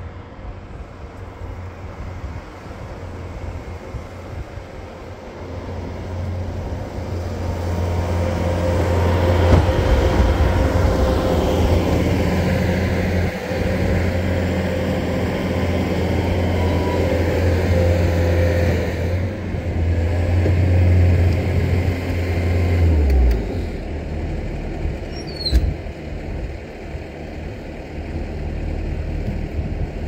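Bobcat skid steer engine running, growing louder over several seconds and holding steady, then its low drone drops off suddenly about two-thirds of the way through. A brief sharp squeak follows shortly after.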